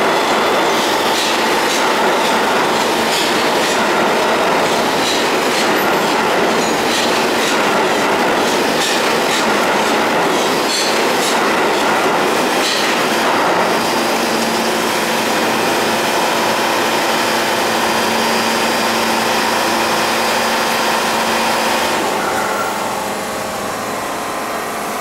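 Pullman-Standard R46 subway train moving through the station: wheels clattering and rattling on the rails with scattered metallic clicks. About halfway through the clatter gives way to a steadier hum, and the sound drops off a little near the end.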